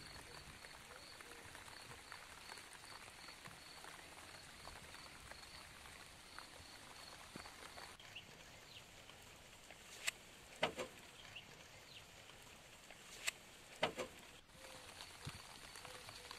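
Quiet outdoor ambience with a faint, high, even chirping about four times a second, and two pairs of sharp taps about two-thirds of the way through.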